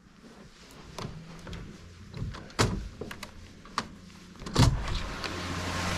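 A door to the outside being unlatched and opened, with a few clicks and knocks and a heavy thump about four and a half seconds in. After it a steady hum and hiss from outdoors come in.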